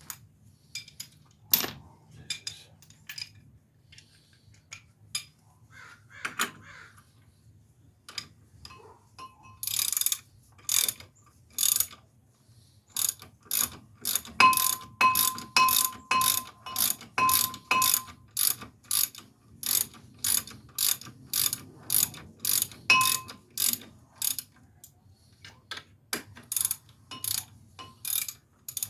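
Hand ratchet wrench clicking as bolts are run in, sparse at first, then a steady run of clicks from about halfway through, some with a light metallic ring.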